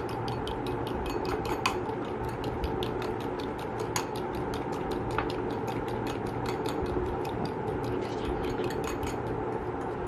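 Egg being beaten in a bowl with a utensil: a quick, even run of clicks of the utensil against the bowl, several a second, that keeps going throughout.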